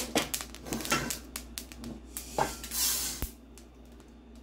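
Flaxseeds crackling and popping as they dry-roast in a hot steel pan, a quick run of sharp ticks. About two and a half seconds in comes a brief rushing noise ending in a knock, then it goes quiet.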